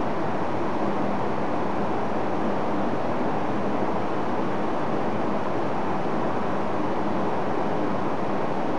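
Steady, even rushing noise of station platform ambience with a faint low hum, unchanging throughout; no train is passing.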